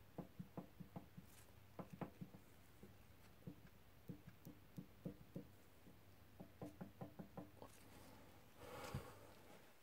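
Faint, light knocks coming in quick runs of about four or five a second, three runs with pauses between, as the gear train of an old cast-iron machine is turned by hand. A short scuffing noise near the end.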